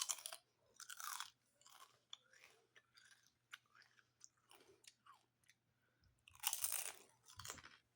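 A person chewing and crunching spicy potato chips close to the microphone: irregular crisp crunches with quieter chewing between them, the loudest bites at the start, about a second in, and again near the end.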